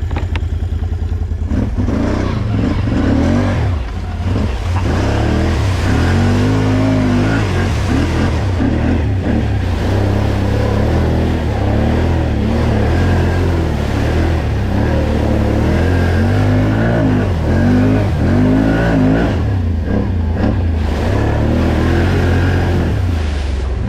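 Battery-powered off-road vehicle driving hard through mud, its motor pitch rising and falling over and over with the throttle over a steady noise of spinning tyres and splashing.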